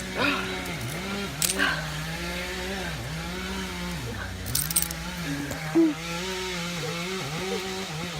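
A two-stroke chainsaw runs at high revs, its pitch sagging and recovering again and again. A few sharp clicks or knocks come through over it.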